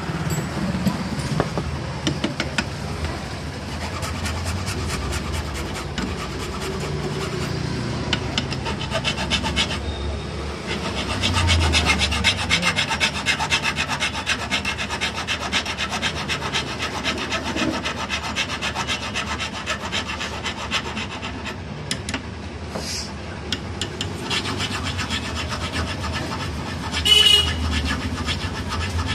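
Steel maggam (aari embroidery) needle being hand-filed against a wooden block: fast, steady rasping strokes of a metal file, with a brief louder sound near the end.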